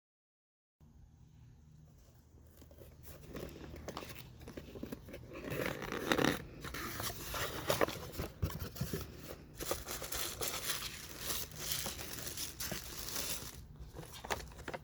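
Packaging being opened and handled: paper and plastic crinkling and rustling, with small tearing sounds and light clicks and taps, starting about two seconds in.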